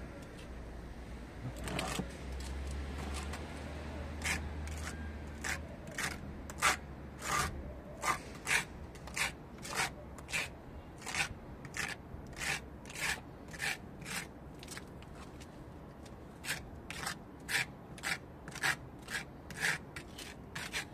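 Small spatula scraping and spreading wet cement plaster over a masonry wall to fill holes, in short repeated strokes about three every two seconds, with a brief pause partway through.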